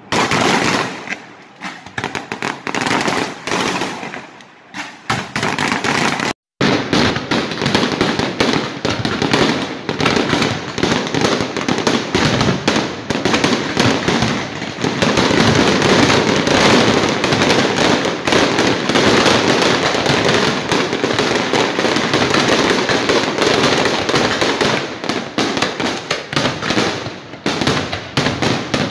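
Aerial fireworks display: separate bursts for the first few seconds, then a dense, continuous barrage of booms and crackling. The sound cuts out for a moment about six seconds in.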